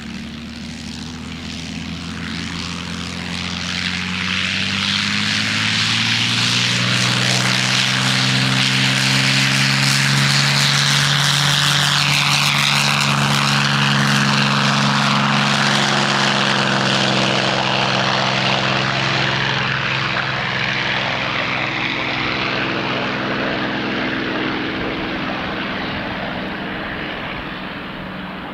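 P-51D Mustang's Packard-built Merlin V12 engine and propeller making a flypast. It builds over several seconds, is loudest around the middle with a drop in pitch as it passes, then fades away.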